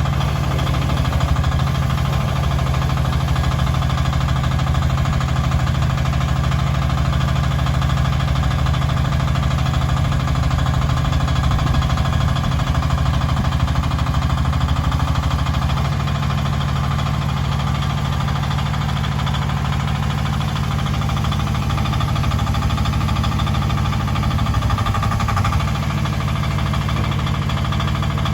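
Mini excavator's engine running steadily, easing slightly in level about halfway through.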